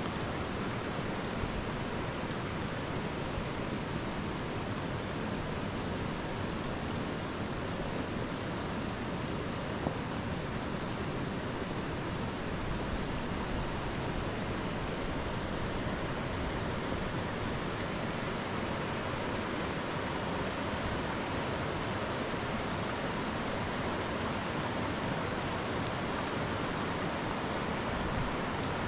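Steady rain, a continuous even hiss with a few faint ticks.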